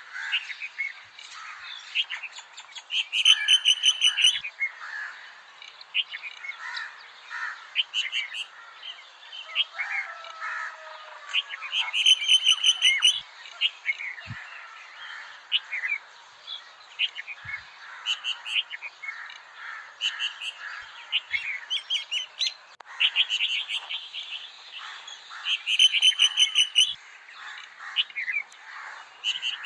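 Several wild birds calling and singing with busy chirps, and a loud rapid trill that comes back four times.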